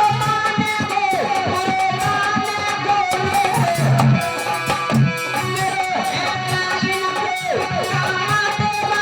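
Instrumental interlude of a devotional folk song. A plucked-string lead plays a sliding melody over a steady drum beat.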